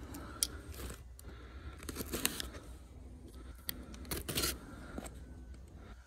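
Small cardboard box being handled and its packing tape cut and pulled open with a utility knife: a scattered series of short scrapes and rips.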